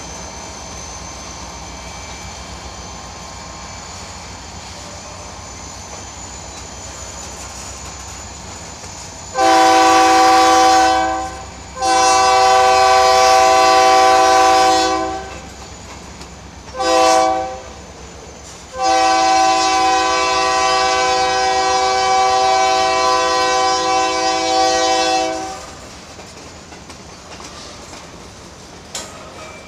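Freight train rolling by with steady wheel and car noise. About a third of the way in, a locomotive's multi-note horn sounds two long blasts, a short one and a final long one, the standard signal for a grade crossing.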